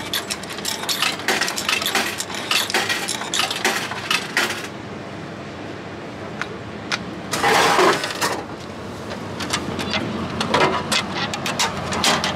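Coins pushed into a drink vending machine's coin slot, clinking and clicking as they drop through the coin mechanism for the first few seconds. About seven and a half seconds in, a can drops down into the delivery tray with a loud clatter lasting about a second, followed by scattered clicks and knocks as it is taken out.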